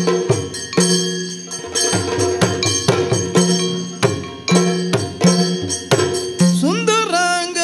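Maddale, the Yakshagana barrel drum, played in a quick rhythmic pattern with booming low strokes, over the steady ringing of small hand cymbals (taala). About six and a half seconds in, a sung voice comes in with a rising, gliding line.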